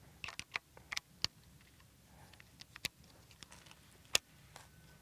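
Shimano Aldebaran BFS XG baitcasting reel being handled while its brake blocks are reset: a quick run of small sharp clicks in the first second or so, then two single clicks, the sharpest about four seconds in.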